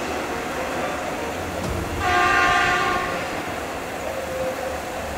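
Horn of a moving railway track-maintenance machine, a PBR 400 URS ballast regulator, giving one steady blast of about a second about two seconds in, over the low rumble of the machine running along the track.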